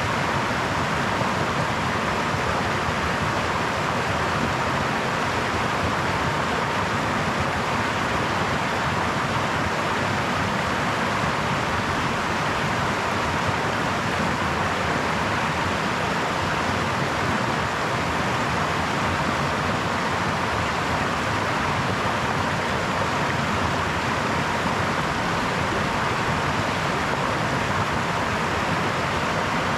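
A brook's water running and babbling steadily, an even rushing hiss with no separate splashes.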